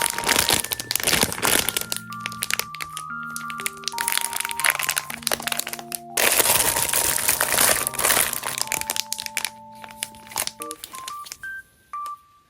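Plastic packaging crinkling and rustling as items are unwrapped and handled, over soft keyboard background music. The crinkling dies away near the end, leaving only the music.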